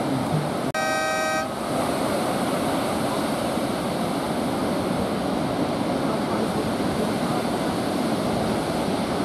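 Steady rush of breaking surf, with a short horn blast of under a second about a second in.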